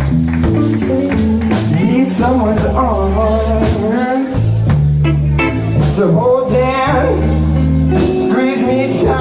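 Live blues band playing: sustained bass notes and drum hits under a lead melody that wavers with heavy vibrato.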